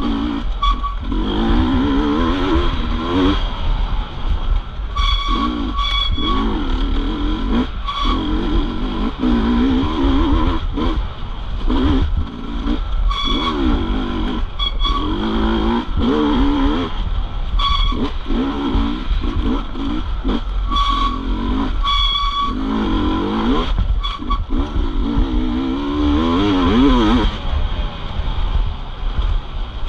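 Dirt bike engine revving up and down over and over, its pitch climbing and dropping every second or two as the rider works the throttle and gears, over a steady low rumble.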